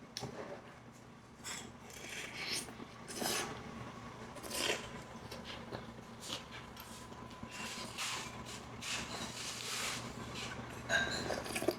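Eating noises over a bowl of pork gukbap: a string of short, irregular scraping and rubbing sounds from a spoon and chopsticks working in the bowl and from the eater's mouth, over a faint steady hum.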